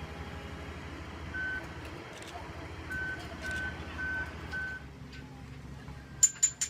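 A heavy vehicle's engine running low and steady while a reversing alarm beeps, once and then four times at about two a second. Near the end come a few sharp clicks.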